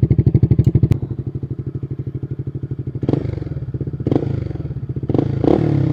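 Honda RS150's single-cylinder engine idling with a strong even pulse through its gutted (kalkal) stock muffler, which has had its baffles and inner tubes removed. A sharp click comes about a second in, after which it runs quieter. From about three seconds in, short throttle blips come roughly once a second.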